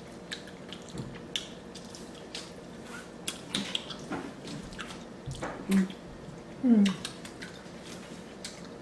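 Close-miked wet eating sounds: chewing, lip smacks and scattered sticky clicks as sauce-coated seafood-boil food is dipped and eaten by hand. Two short hummed sounds come a little past the middle.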